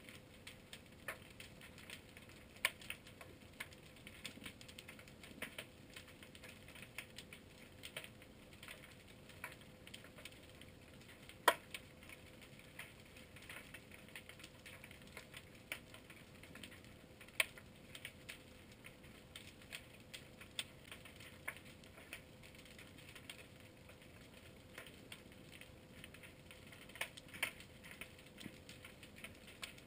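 Underwater crackle of many irregular sharp clicks, with one louder snap a little over a third of the way in, over a faint steady hum.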